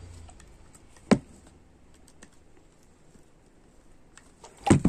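Slime-making containers and utensils being handled as slime is scooped out: a sharp knock about a second in, faint scattered taps, then a quick cluster of knocks near the end.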